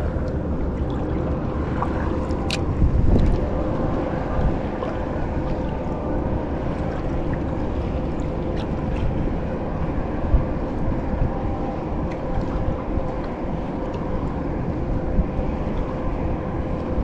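Wind buffeting the microphone over choppy sea water, with a few light clicks.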